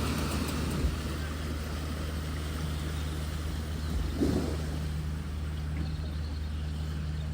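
A motor vehicle's engine running steadily with a low, even hum, with a couple of soft thumps.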